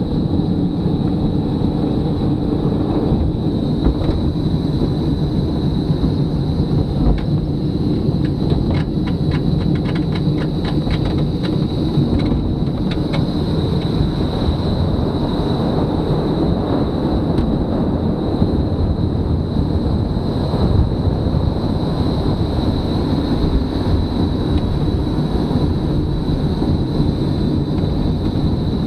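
Velomobile rolling on asphalt: a steady low rumble of tyre and road noise boomed by the enclosed shell, mixed with wind. A thin, steady high whine runs over it, and a short run of rapid ticks comes about a third of the way in.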